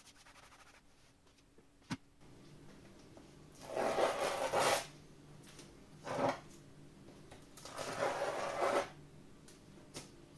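Blue painter's masking tape being peeled off a painted canvas: two longer ripping peels a few seconds apart, with a short one between them, and a single light click a couple of seconds in.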